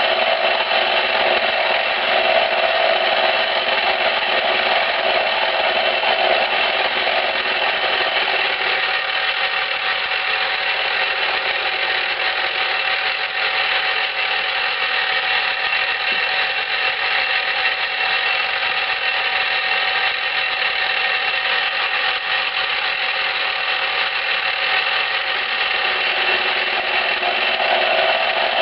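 Milling machine running, its end mill taking light cuts across the end of a steel lathe gib held in a vise: a steady whine made of many tones over a grinding hiss. The lower part of the sound eases off about eight seconds in and comes back near the end.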